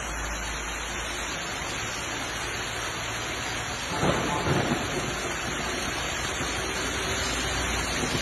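Heavy hail and rain falling, a steady hiss of hailstones and water hitting the ground. About four seconds in it grows louder, with a few heavy thumps.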